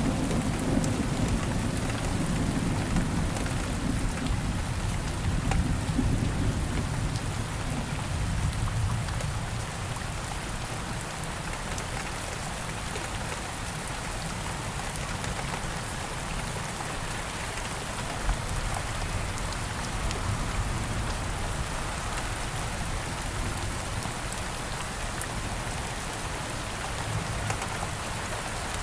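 Rain falling steadily, an even hiss of drops, with a low rumble of thunder in the first few seconds that fades away about ten seconds in.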